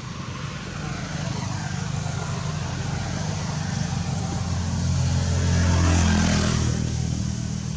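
A motor vehicle passing by: its engine and tyre noise grow louder, peak about six seconds in, then fade away.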